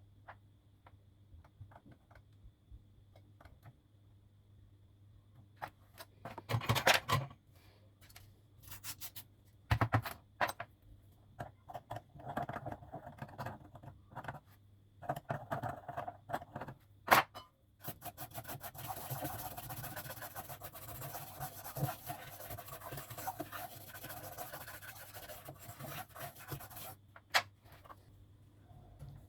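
Hand work on a circuit board at a repair bench: scattered clicks and short scratches, then about eight seconds of continuous scraping from a little past the middle, over a faint steady hum.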